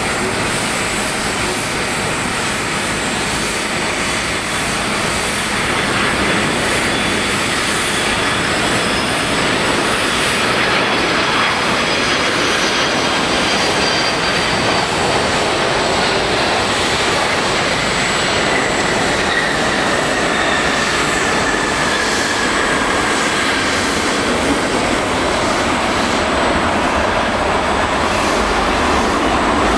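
Jet engines of a Boeing 767-300 airliner landing: a loud, steady noise through the final approach, touchdown and rollout, with a faint high whine that slowly falls in pitch in the second half.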